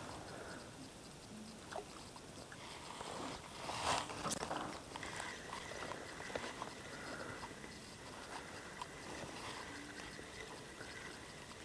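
Quiet open-air background with faint scattered clicks and rustling from a spinning rod and reel being worked, and a brief rushing burst about four seconds in.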